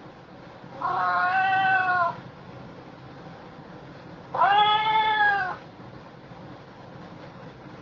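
Domestic cat giving two long, drawn-out meows a few seconds apart, the second rising and then falling in pitch.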